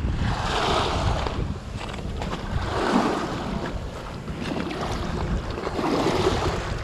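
Wind buffeting the microphone with a steady low rumble, while ocean waves wash in on the shore, swelling and fading about every three seconds.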